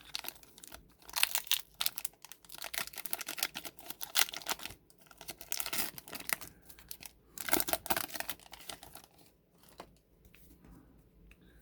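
Plastic trading-card pack wrapper being torn open and crinkled by hand, in a long spell of crackling and then a shorter one.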